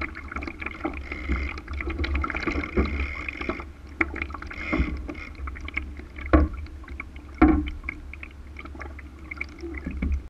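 Water slapping and splashing against the hull of a Laser sailing dinghy under way, with a steady low rush of wind on the microphone. It is dotted with small knocks, and two louder slaps come about six and seven seconds in.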